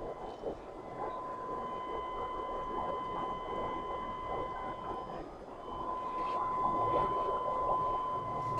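Steady aquarium aeration running in the fry tanks: a constant high whine over a rushing, bubbling noise, a little louder near the end.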